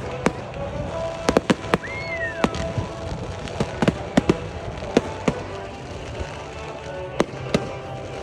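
Fireworks going off in a display, about a dozen sharp bangs at irregular intervals, with a gliding whistle that rises and falls about two seconds in. Music plays steadily underneath.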